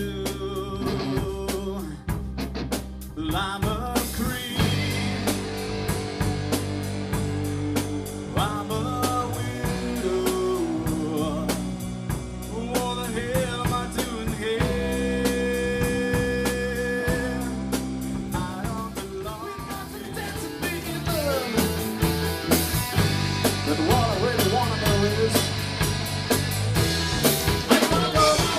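Live rock band playing with drum kit, bass and a singing voice, recorded at a rehearsal with modest quality.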